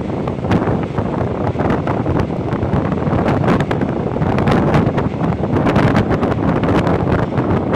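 Wind buffeting the microphone over the running noise of a diesel railcar, heard from its open door or window while the train travels. A steady loud rush with many short clicks and knocks mixed in.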